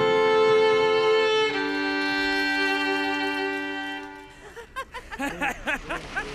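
Fiddle music playing long held notes, fading out about four seconds in. Then short, arching bird calls repeat in quick succession.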